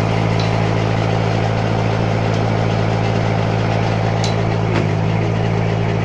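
Steady low hum of a running motor, with a few faint metallic clicks.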